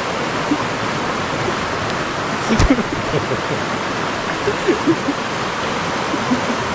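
Steady rush of flowing river water, with a single sharp knock about two and a half seconds in.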